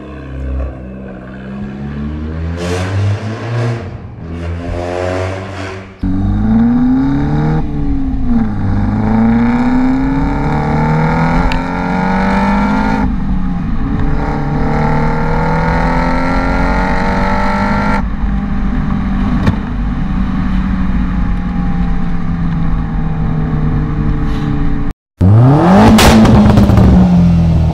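Loud Vauxhall Corsa VXR exhausts in a string of short clips. A car pulls away with a rough, deep exhaust note. Then it accelerates hard through the gears, the engine note climbing and dropping back at each of several gear changes. After a brief cut to silence near the end comes a sharp rev that rises and falls, with cracking pops.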